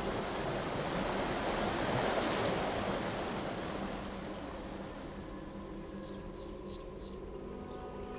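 Rushing, churning floodwater, loudest about two seconds in and fading over the second half. A few short bird chirps come in about six to seven seconds in, and soft music begins near the end.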